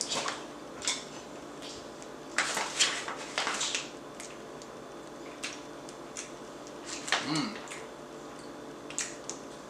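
Snacks and their packaging handled at a table: a series of short crinkles, clicks and light clatters, busiest from about two to four seconds in.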